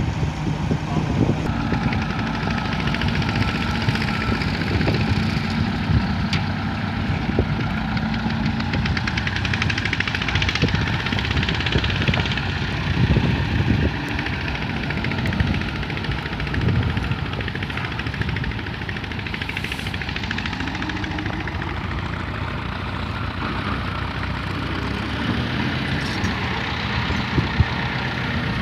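Tractor engine running steadily, with the low, even beat of an engine throughout.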